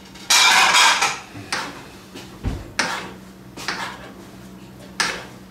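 A utensil scraping and knocking in a frying pan: one longer scrape about half a second in, then a handful of separate sharp clicks and taps spaced roughly a second apart.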